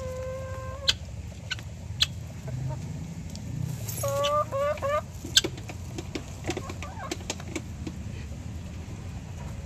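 Poultry calling in a coop: one drawn-out note about a second long at the start, then a quick run of four or five short notes a little after four seconds, with scattered sharp taps between.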